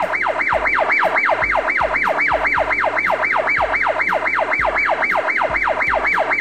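Fire truck siren wailing in quick repeated downward sweeps, about four or five a second.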